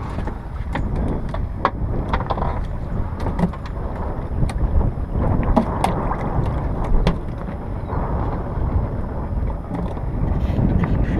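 Wind rumbling on the microphone aboard a small fishing boat, a steady low noise with no engine tone, with scattered light clicks and knocks.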